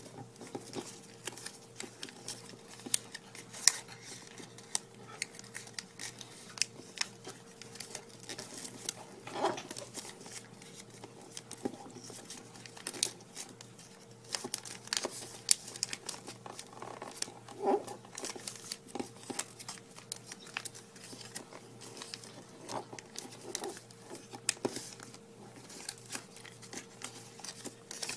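Origami paper being folded and creased by hand: irregular crinkling and crackling rustles, many small ones with a few sharper cracks, over a faint steady hum.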